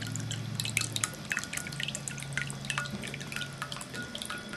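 Handmade ceramic cat drinking fountain running: water spilling over the frog-topped dome into the bowl, with a steady trickle and many small drips and splashes.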